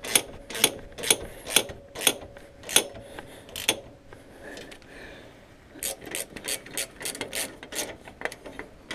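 Hand ratchet wrench clicking in short strokes, about two a second, then after a pause of a couple of seconds in quicker strokes, as the bumper bolts holding the winch are tightened.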